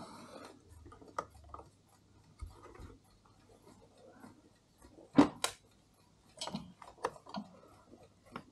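Small metal clicks and taps as tools and fingers handle a brass Mauthe chime clock movement, coming at irregular intervals, with a sharp pair of clicks a little past five seconds in.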